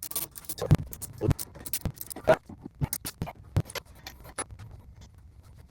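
Irregular clicks, taps and short scrapes of metal rifle parts and tools being handled during assembly.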